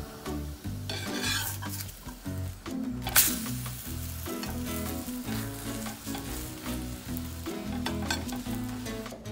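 A vegetable paratha sizzling in a hot frying pan while a slotted metal spatula presses and scrapes it, with one sharp scrape about three seconds in. Soft background music with a bass line plays underneath.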